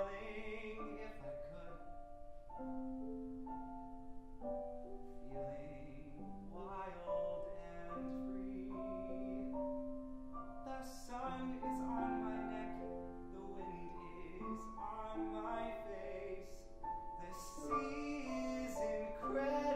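A man singing a musical theatre ballad, accompanied on grand piano, with held notes that waver with vibrato.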